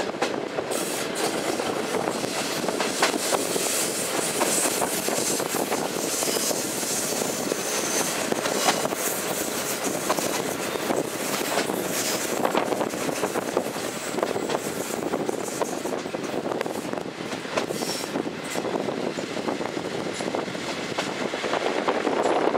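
Passenger train running on the rails, heard from an open carriage window: a steady rush of wheel and air noise with frequent sharp clicks from the track, and a faint high squeal at times.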